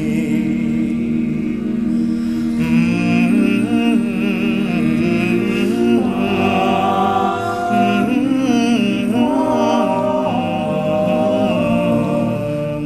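All-male a cappella group singing, with a lead voice moving over the backing voices' held chords, which shift every few seconds.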